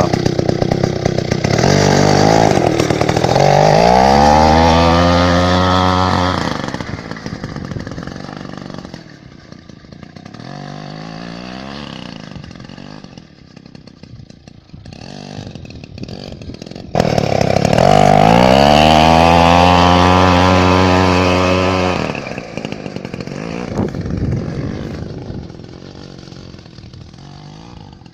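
Two-stroke engine of a Druzhba chainsaw driving a homemade snowmobile. It is revved hard twice, from about a second and a half in and again from a sudden jump about seventeen seconds in, each time for some five seconds. It drops back to a low, uneven run in between and afterwards.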